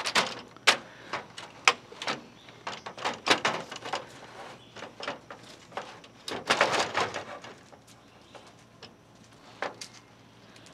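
Truck grille being handled and pushed into place in the front of a 1986 Chevy C30: a run of irregular clicks, knocks and rattles, busiest over the first seven seconds, then mostly quiet with a single knock near the end.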